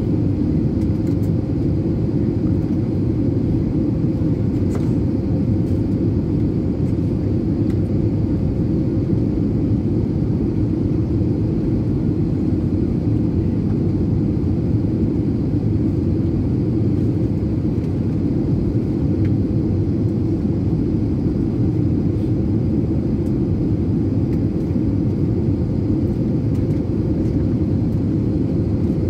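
Cabin noise inside an Airbus A320neo airliner on approach: a steady low rumble of airflow and engines, with a faint steady hum above it.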